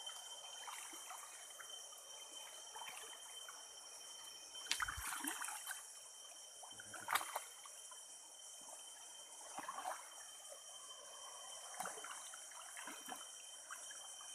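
River water trickling, with a few short splashes, over a steady high-pitched drone of insects.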